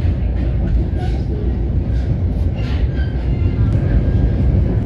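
Steady low rumble of an NJ Transit Comet IV commuter coach running along the rails, heard from inside the car.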